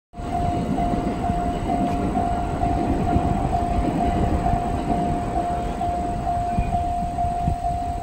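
Japanese level-crossing warning bell in the JR Central style: an electronic ding repeating about twice a second at one steady pitch, over a low rumble.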